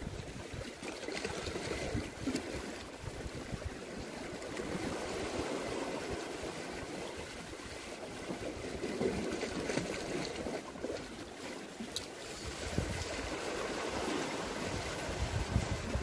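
Sea water washing and trickling over shore rocks, with wind buffeting the microphone.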